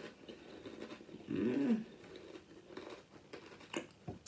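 A person chewing a mouthful of crunchy Sour Patch Kids cereal in milk, with a short hum of the voice about a second and a half in.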